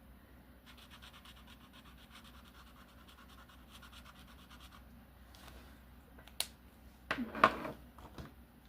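Marker scratching quickly back and forth on a colouring-book page, faint and fast. A brief louder sound with a rising pitch follows about seven seconds in.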